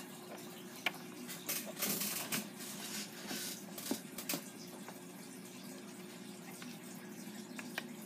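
Steady low background hiss and hum, with a few soft clicks and rustles in the first half from plastic toy figures being handled.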